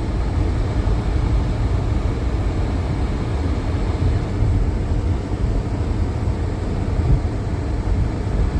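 Steady low rumble of a car heard from inside the cabin: engine and road noise while driving on a snow-covered road.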